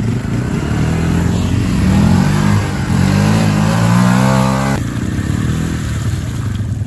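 Small off-road vehicle's engine revved hard under load, its pitch climbing for several seconds as the stuck vehicle tries to climb over a rock, then dropping suddenly back to a low run about five seconds in.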